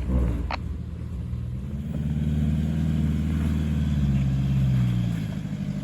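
Four-wheel drive's engine running low, then the revs pick up about two seconds in and hold for a few seconds before easing off near the end. A single short click comes early on.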